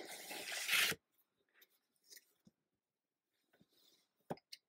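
Plastic comic bags crinkling and sliding as a stack of bagged comics is picked up, for about a second before stopping abruptly. Faint handling follows, then a single sharp tap near the end.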